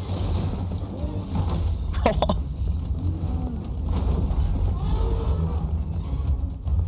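Action-scene sound effects from an animated episode: a deep, steady rumble with short curving cries over it, and one sharp hit about two seconds in.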